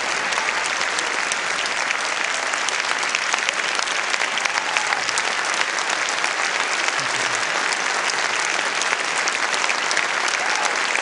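Large theatre audience applauding: many hands clapping in steady, sustained applause.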